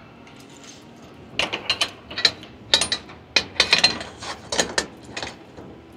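Quick metallic clicks and clinks in irregular short bursts, starting about a second and a half in, as a duct coupling clamp is fitted onto the IP bleed check valve joint.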